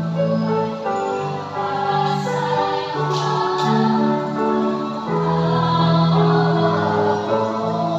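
A choir singing in harmony at practice, several voices holding long notes together and moving from chord to chord.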